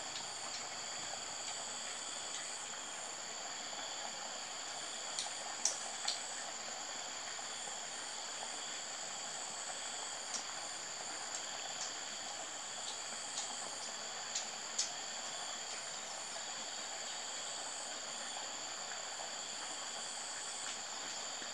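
Insects trilling steadily at several high pitches at once, one of them faintly pulsing, with a dozen or so short faint clicks scattered through, the sharpest about five to six seconds in and again around fifteen seconds.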